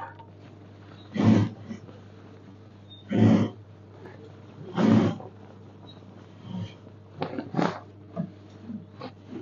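Industrial sewing machine stitching in short runs of about half a second each, four main runs with a few shorter stabs near the end, over the steady hum of its running motor.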